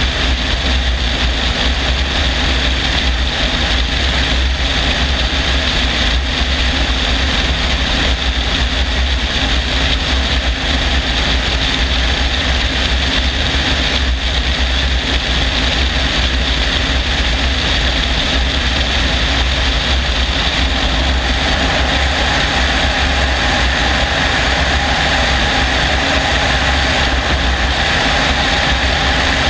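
Helicopter in flight, its engine and rotor running steadily, heard from a camera mounted on the outside of the aircraft.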